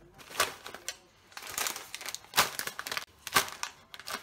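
Plastic food packets crinkling and rustling as they are set down one after another on a countertop, in about four short bursts roughly a second apart.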